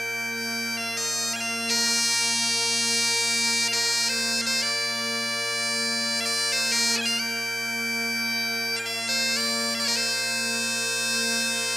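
Background instrumental music: a melody of changing notes over a constant low drone.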